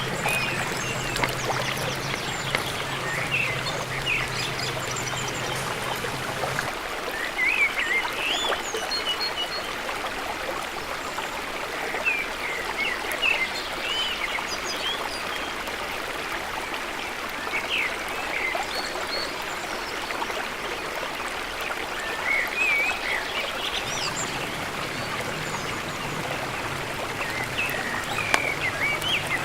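Gourami deep-frying in hot oil, a steady sizzle, with birds chirping now and then. A low hum stops about seven seconds in and comes back near the end.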